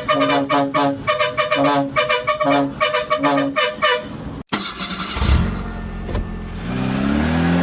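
Musical vehicle horn playing a quick, repeating staccato tune, which cuts off about halfway through. Then an engine starts running and revs, its pitch rising near the end.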